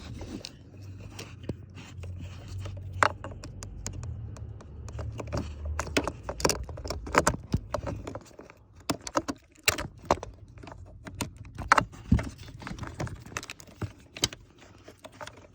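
Plastic clicks, rattles and scrapes of wiring-harness connectors being unlatched and pulled out of a Honda MICU fuse box, with a low hum under the first eight seconds or so.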